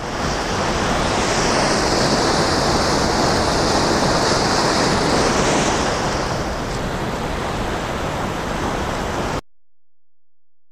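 Steady rush of falling water from the ice-covered Great Falls of Paterson on the Passaic River, cutting off suddenly near the end.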